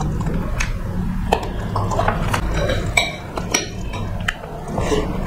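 Dishes and cutlery clinking and tapping as food is eaten by hand from plates and bowls, a string of short, sharp clicks over a steady low hum.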